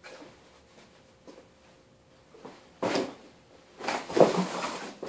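Handling noises: a brief knock about three seconds in, then about a second of scraping and clatter near the end.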